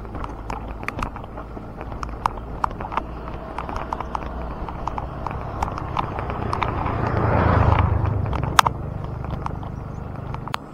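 Bicycle coasting down a hill road, recorded from a chest-mounted camera: a steady low rumble of tyres and wind with scattered sharp clicks and rattles from the bike. A louder rush of noise builds and fades about seven to eight seconds in.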